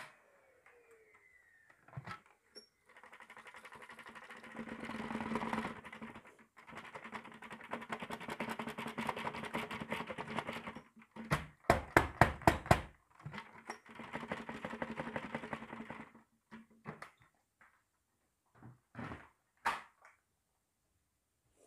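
Dry red lentils pouring from a tipped container onto a thick pile carpet: a steady hiss of falling grains in several pours. Near the middle comes a quick run of about eight sharp knocks, and a few scattered taps follow near the end.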